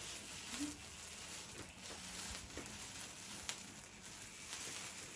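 Handheld sparkler fountain burning with a faint steady hiss and a few sharp crackles from its sparks.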